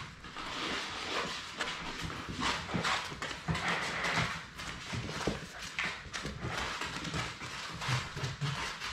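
Labrador puppies' claws clicking on a hard wood floor as they walk and scamper about, in many quick irregular taps.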